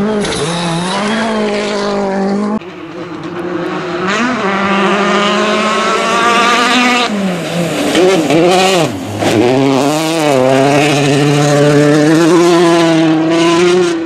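Rally cars on a gravel stage, their engines revving hard, rising in pitch and dropping back at each gear change. Several cars are heard in turn, with sudden cuts between them.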